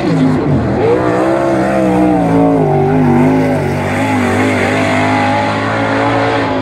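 Winged 410 sprint car's V8 engine running a lone qualifying lap: the engine note drops sharply about half a second in as the throttle comes off, climbs back up, then holds high with small rises and dips.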